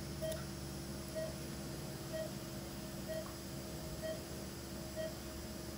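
Operating-room patient monitor sounding its pulse tone: a short, mid-pitched beep about once a second, one with each heartbeat, over a steady low equipment hum.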